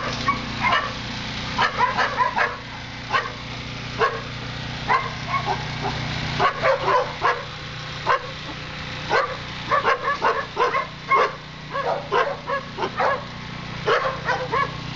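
Dogs barking in a shelter kennel: short, sharp barks and yips come irregularly, often several in quick succession, over a steady low hum.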